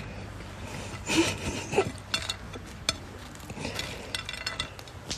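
French fries being picked up and shifted on a ceramic plate: irregular scraping and rubbing with a few sharp clicks of fingers and fries against the plate.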